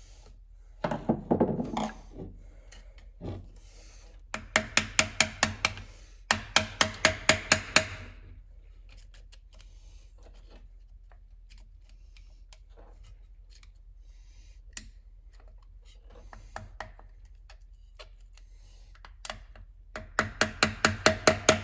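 Tool work on a metal transmission: a brief scrape, then two bursts of rapid, evenly spaced mechanical clicking, each about two seconds long, and another burst starting near the end, with scattered light ticks between.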